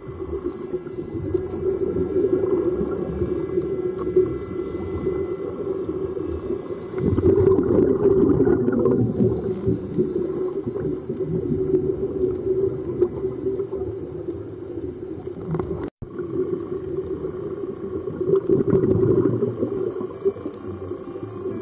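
Muffled underwater sound of scuba divers' bubbling and gurgling breath, over a steady low hum, swelling louder twice. It breaks off for an instant about two-thirds of the way through.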